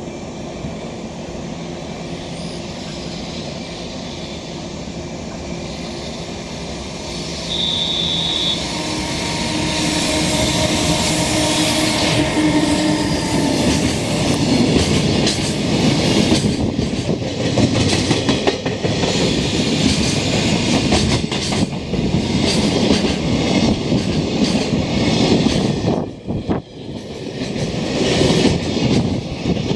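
Electric freight train passing through a station: the locomotive's running hum grows as it approaches, with a brief high tone about eight seconds in. Then comes the loud rush and rhythmic wheel clatter of container wagons rolling by, easing for a moment near the end.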